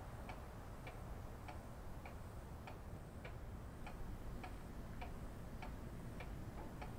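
A clock ticking steadily and faintly, a little under two ticks a second, over low room hum.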